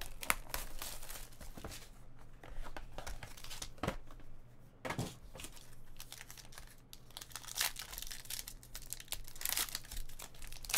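Plastic and foil wrapping of a trading card pack crinkling and tearing as it is opened by hand, in irregular crackles.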